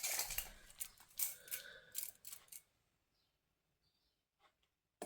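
Handling noises while a toy's box is being measured: a cluster of short clicks and scrapes over the first couple of seconds, then a single click near the end.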